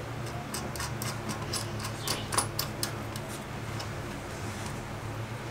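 Light, irregular metallic clicks and ticks from a nut and washer being turned by hand onto a toilet's closet bolt at the porcelain base, mostly in the first three and a half seconds, over a steady low hum.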